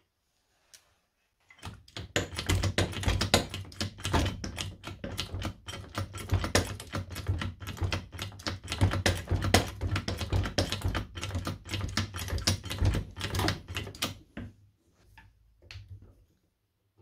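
Hydraulic trolley floor jack being pumped with its handle: a fast, dense run of metallic clicks and clatters from the pump and linkage as the piston rod is pushed back up, showing the jack lifts again after its oil was topped up and the air bled out. The clicking stops a couple of seconds before the end, leaving a few faint clicks.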